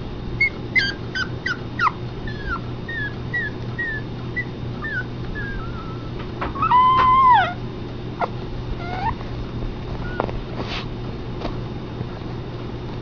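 Pomeranian puppy whimpering as it yawns: a run of short, high, falling squeaks, then one longer, louder whine about seven seconds in, and a few more short squeaks after it.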